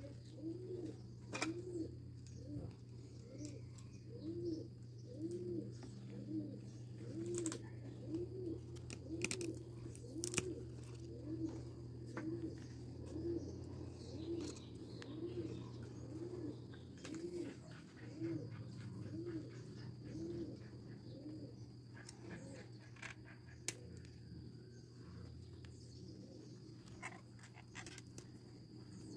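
A dove cooing in a long, even series of soft coos, about one a second, fading out about two-thirds of the way through. Under it runs a steady low hum, with scattered light clicks of leaves being handled.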